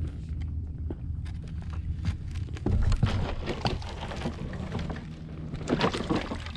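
Low, uneven rumble of wind on the microphone, with irregular knocks and crackles of gear and footsteps being moved about. The sound swells briefly about three seconds in and again near the end.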